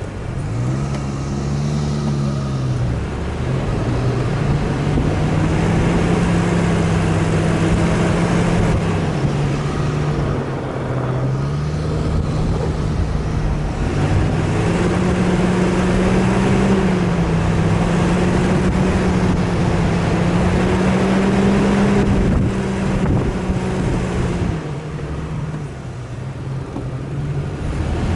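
An off-road 4x4's engine running under changing throttle, its pitch rising and falling several times, over a steady rushing noise.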